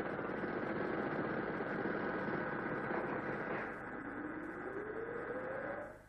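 Electronic synthesized drone from a TV logo ident: a dense, noisy hum with a steady high tone, and a tone slowly rising in pitch over the last two seconds before it cuts off.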